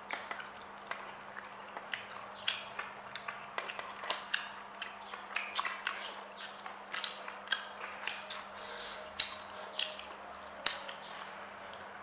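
A person chewing a mouthful of octopus with rice close to the microphone: many irregular mouth clicks and smacks, with a steady low electrical hum underneath.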